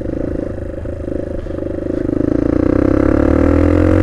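Small motorbike engine running while riding, its pitch and loudness rising steadily over the second half as it accelerates.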